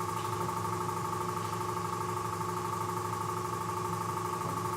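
Boxer VBS2612 vertical bandsaw running steadily with no cut: an even hum with a few constant tones, one of them fairly high.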